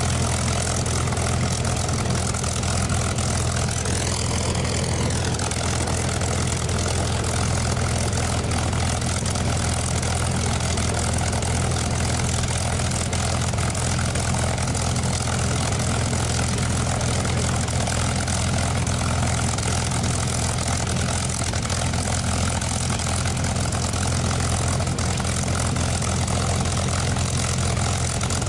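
P-51 Mustang's Merlin V-12 engine idling steadily on the ground, a deep, even drone with the propeller turning.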